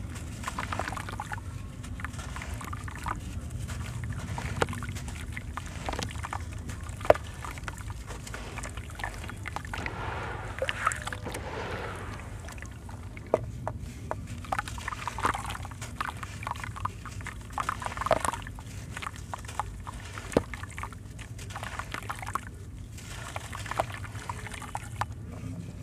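A wet block of white sand-cement crumbling and grinding in the hands, with gritty crackles and scattered sharp clicks. Water sloshes and pours as the crumbled pieces are swished through a tub of water.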